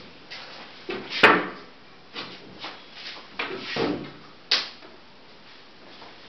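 Wooden knocks and clatters from a plywood cabinet being handled, its door pushed shut. The loudest knock comes about a second in, and a sharp click follows a few seconds later.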